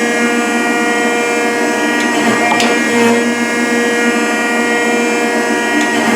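Rockford hydraulic planer running, a steady machine whine with several steady tones over a rushing noise. A few sharp ticks come through, including two a little past the middle.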